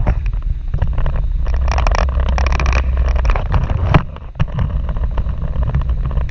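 Car driving: a steady low rumble of engine and road, with wind noise over it and a sharp knock about four seconds in.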